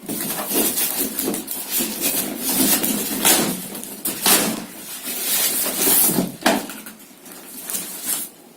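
Packaging being handled while printer accessories are taken out of the box: irregular rustling with light knocks and clatter, in uneven bursts.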